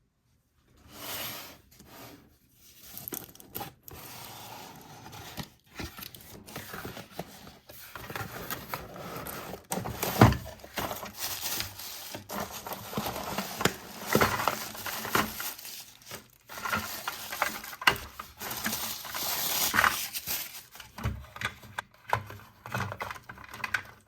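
Hands handling toy packaging at close range: a dense run of crinkling, tearing and small clicks and taps of plastic and cardboard.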